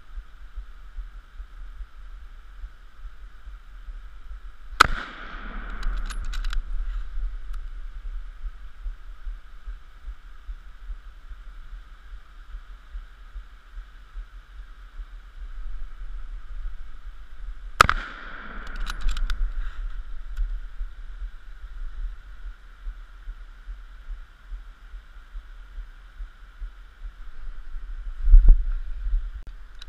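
Two shots from a scoped hunting rifle, about 13 seconds apart, each a sharp crack with a short rolling echo, followed by a few light clicks as the rifle is worked. A dull thump near the end, over a steady low rumble.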